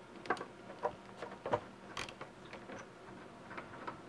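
Ratchet wrench with an 8 mm hex-bit socket clicking in scattered, irregular bursts while backing out a motorcycle front brake caliper's mounting bolt.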